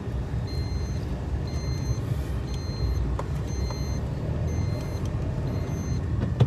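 Steady low road and engine rumble inside a moving car's cabin, with a high electronic beep repeating about once a second.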